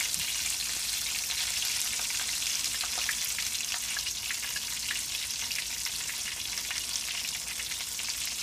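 Batter-coated oyster mushroom pieces shallow-frying in hot oil in a skillet: a steady sizzle with many small crackles and pops.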